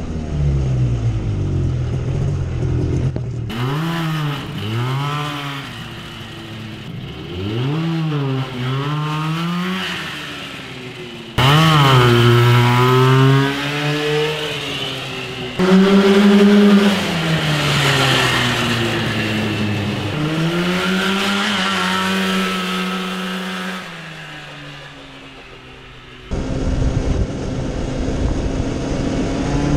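Snowmobile engine in a small go kart, revving up and dropping back again and again as the kart is driven, its pitch rising and falling with the throttle. The sound jumps abruptly in loudness several times, loudest about a third and halfway in.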